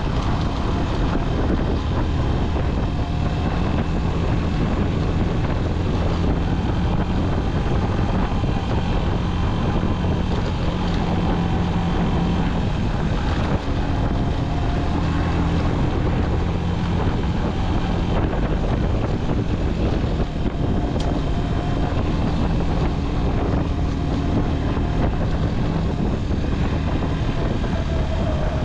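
Small motorcycle engine running steadily as it rides along a gravel track, with wind buffeting the microphone.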